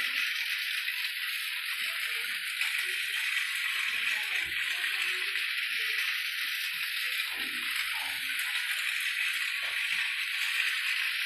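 Small battery-powered toy train running, a steady rattling whir of its motor and gears.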